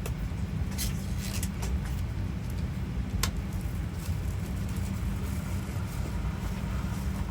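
Steady low rumble inside the cabin of a Boeing 737-800 airliner, with a few faint clicks and knocks near the first second and just after three seconds.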